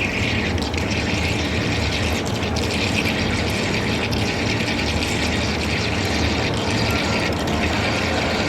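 Machine-shop machinery running steadily: a continuous low hum with a hiss above it and a few faint clicks.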